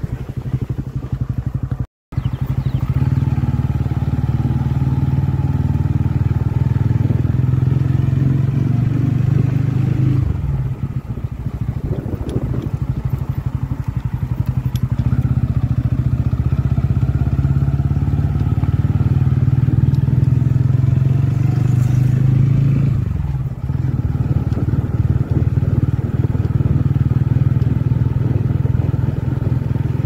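TVS Ronin 225's single-cylinder engine running steadily as the motorcycle rides along, its note dipping briefly twice, about a third of the way in and again about three-quarters through. The sound cuts out for a split second about two seconds in.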